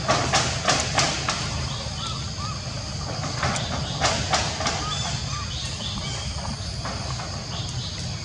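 Macaques moving on a corrugated metal roof: a quick run of sharp knocks and rattles in the first second, and a few more around four seconds in. Faint short chirps come every second or two over a steady low hum.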